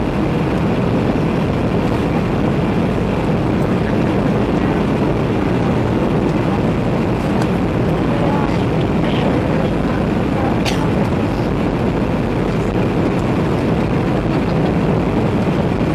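Steady low rumble of a Boeing 737-700's cabin: engine and airflow noise heard from a passenger seat, holding even throughout, with a few faint ticks.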